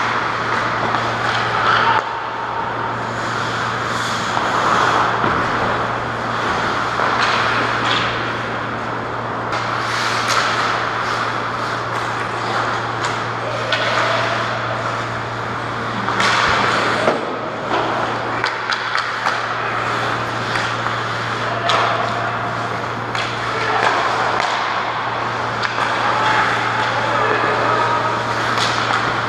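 Ice hockey play on the rink: skates scraping the ice, with sticks and puck making sharp clacks now and then, over a steady low hum.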